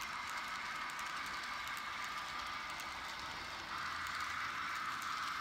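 N scale model freight cars rolling past on the track: a steady rush of small metal wheels on the rails with light clicking, a little louder from a few seconds in.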